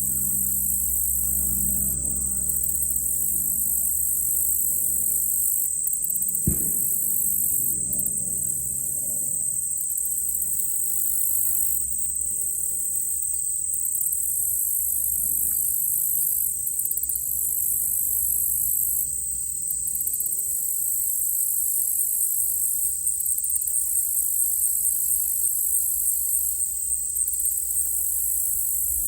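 Steady insect chorus: one constant high trill with faster pulsing chirps above it. About six and a half seconds in, a single sharp crack from a distant gunshot.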